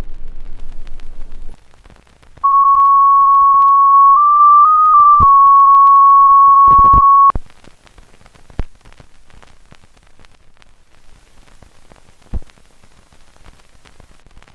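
Background music fades out. After a short gap a loud steady electronic test tone sounds for about five seconds, wavering briefly in pitch midway, then cuts off suddenly. Faint crackling static follows.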